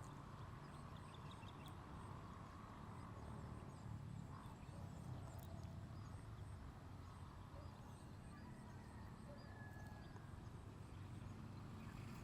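Near silence: faint background ambience with a low steady hum.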